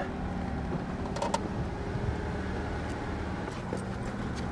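Jeep engine running steadily at low crawling speed, a low even hum, with a few light clicks a little over a second in and again near the end.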